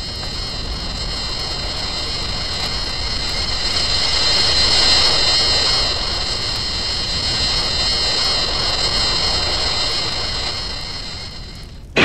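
A jet-like whine in the film's soundtrack: several steady, slightly wavering high tones over a rushing roar. It swells to its loudest about halfway through and fades near the end.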